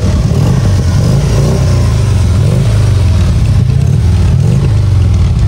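Motorcycle engine running loud with a deep, pulsing rumble that rises and falls slightly as it is revved.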